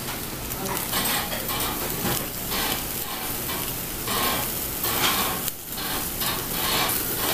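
Pork intestine (makchang) and pork skirt meat sizzling on a wire grill over charcoal, with scattered clicks of metal tongs against the meat and grill mesh.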